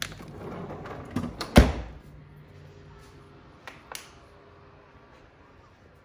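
Household knocks and clatters: a run of bumps in the first two seconds, the loudest about a second and a half in, then two light clicks near four seconds.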